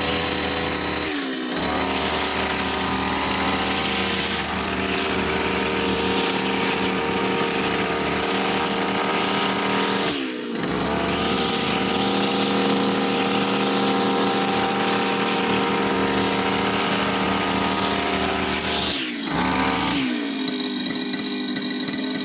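Brush cutter's small petrol engine running steadily at high revs. The revs briefly drop and pick up again three times, then fall back to a lower idle near the end.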